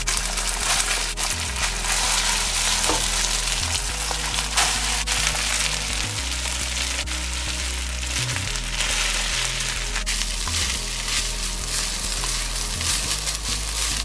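Cooked rice sizzling in hot oil in a non-stick wok, a steady frying hiss. A wooden spatula stirs and breaks up the rice, with occasional clicks against the pan.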